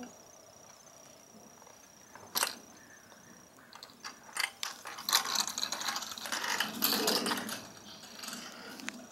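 Child's Schwinn bicycle with training wheels rolling over asphalt, rattling and clicking as it goes, loudest midway and fading near the end. A single sharp click comes about two seconds in.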